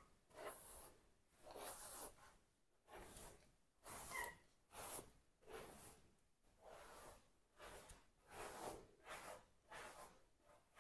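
A hairbrush drawn through damp hair, about a dozen faint swishing strokes at roughly one a second.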